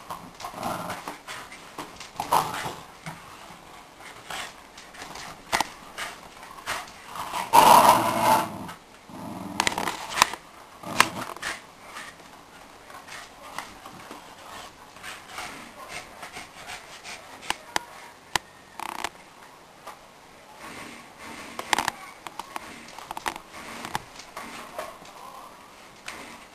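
Shiba Inus growling in play as they pull against each other on a cloth tug toy, in irregular bursts, the loudest about eight seconds in, with scattered clicks and scuffles between.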